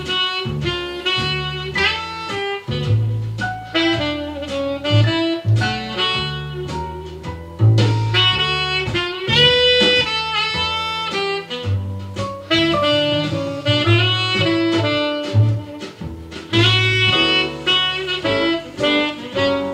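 Instrumental jazz with a saxophone lead over a bass line, played from a vinyl record. The record is tracked by a SAEC C-1 cartridge whose broken stylus was repaired with a new needle taken from another cartridge.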